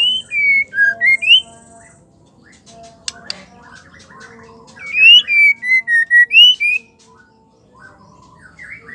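Female white-rumped shama calling: two runs of clear whistled notes that slide up and down, one at the start and one about five seconds in, with a few sharp clicks between them.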